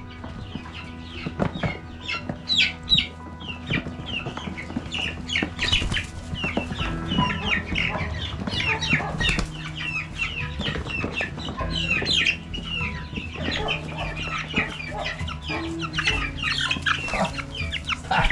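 A group of young meat chickens (Big Red Broilers) calling, many short high peeps overlapping. The calls thicken into a near-continuous chatter from about six seconds in.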